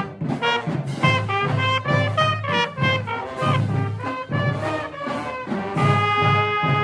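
Brass instrument played in a swing style: a quick line of short notes, then one long held note near the end.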